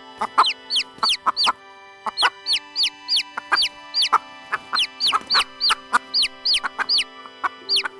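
Chickens calling over background music: many short, high calls falling in pitch, several a second, mixed with lower clucks.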